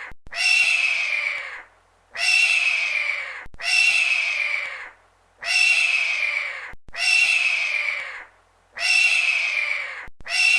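Eagle screaming: a harsh, shrill screech repeated about seven times, each call about a second long and falling slightly in pitch.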